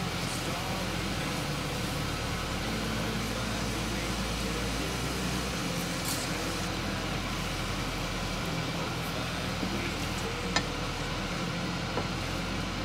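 Food sizzling steadily in a pan over a lit gas burner, with a couple of light clicks of utensils in the second half.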